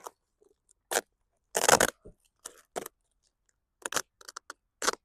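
Parcel wrapping being cut and torn open by hand: about five short ripping, snipping sounds, the longest and loudest about a second and a half in.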